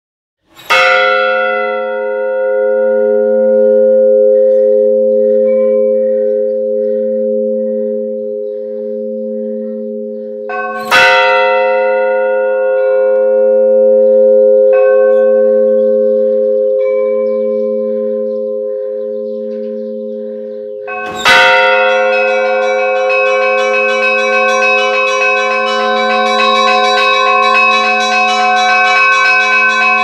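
Orthodox monastery church bells. The big bell is struck three times about ten seconds apart, each stroke ringing on with a long steady hum, with a few fainter, higher strokes between. From about two-thirds of the way in, the smaller bells join in a rapid, continuous peal over the big bell's hum.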